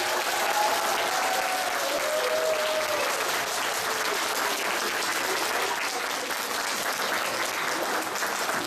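Audience applauding steadily, with a few voices heard over the clapping in the first few seconds.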